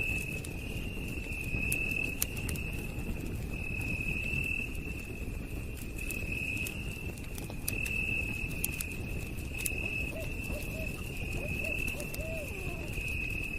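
Campfire crackling, with scattered sharp pops over a low rumble, under a steady high-pitched trill of night insects that swells and fades. A few faint short chirping calls sound near the end.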